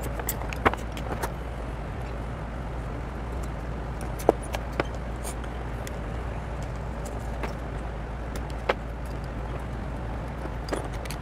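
Screwdriver working loose the screws of a small refrigerator fan motor, with a few scattered sharp metallic clicks over a steady background hiss and hum.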